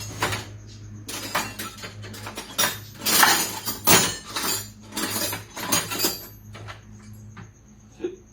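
Metal hand tools clinking and clattering against each other and metal parts in a run of sharp knocks, loudest around the middle, thinning out after about six seconds.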